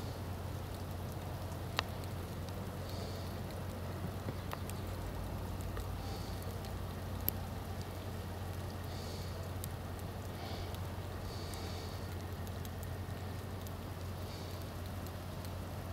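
Steady outdoor hiss of wind and falling snow, with a constant low hum and a few faint clicks.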